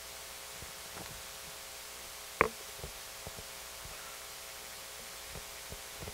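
Steady hum and hiss of an amplified sound system with a few scattered faint knocks and clicks, the loudest about two and a half seconds in.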